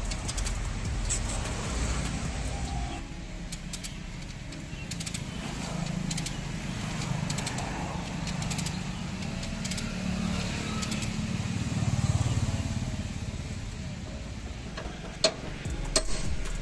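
Road traffic passing, a low rumble that swells and fades, loudest about twelve seconds in. Over it, the links of a steel chain clink now and then as it is hooked onto the car's front frame, with two sharper metal clinks near the end.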